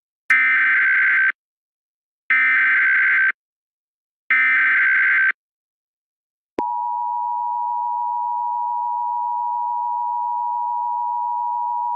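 Emergency Alert System SAME header: three one-second bursts of warbling digital data tones, a second apart. About six and a half seconds in, the steady two-tone EAS attention signal starts and holds.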